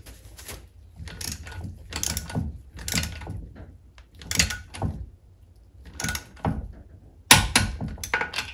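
Ratchet of a click-type torque wrench clicking in short bursts as it is swung back and forth, tightening an outdrive mounting nut. A sharper, louder clack comes about seven seconds in.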